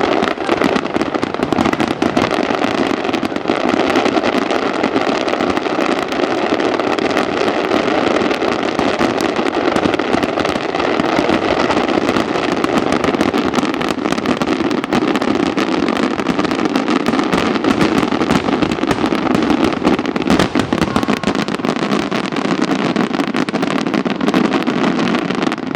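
A dense, continuous barrage of fireworks: rapid overlapping bursts and crackling with no gaps, staying loud throughout.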